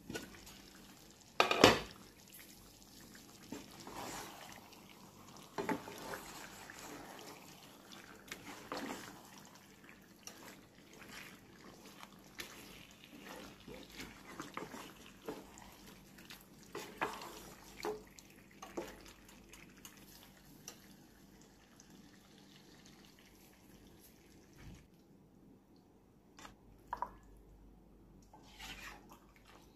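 Wet kitchen sounds: irregular drips, splashes and small pops of liquid, with one sharp knock about a second and a half in. A low hiss underneath stops about 25 seconds in.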